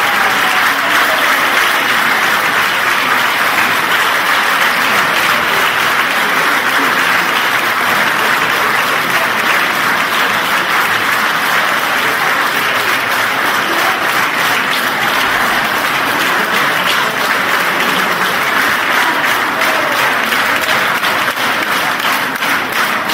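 Audience applauding, a dense, steady clapping; near the end it falls into an even beat.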